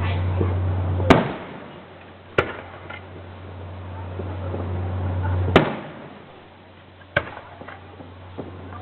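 Fireworks going off: four sharp bangs a second or more apart, with fainter crackles between them, over a steady low hum.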